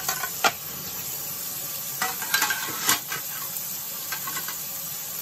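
Kitchen tap running into a stainless steel sink as dishes are rinsed, with a few short clinks and knocks of dishes, two near the start and a few more about two to three seconds in.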